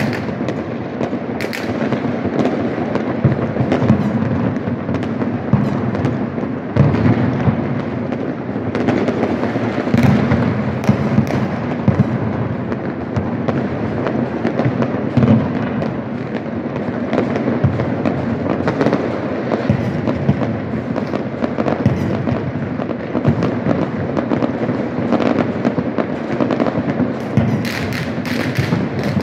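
Many fireworks and firecrackers going off at once across a city: a continuous din of overlapping bangs, booms and crackling, with sharp reports every second or so.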